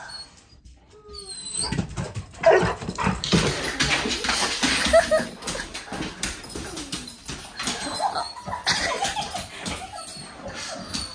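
A dog whimpering and giving short yips and barks, excited at its owners' homecoming, getting louder and busier from about two seconds in.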